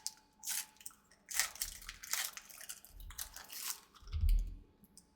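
Foil trading-card booster pack wrapper crinkling and rustling in the hands in several short bursts as it is opened, with a dull bump about four seconds in.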